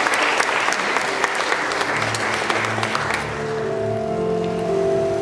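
Audience applauding. The clapping dies away about three seconds in as soft instrumental music with held notes and a low bass line begins.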